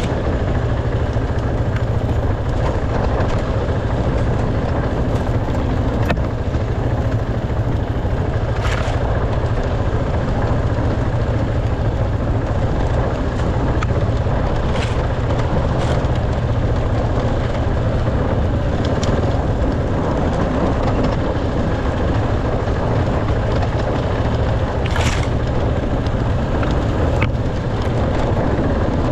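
Dirt bike engine running steadily while riding off-road, with rushing noise and a few short sharp clicks.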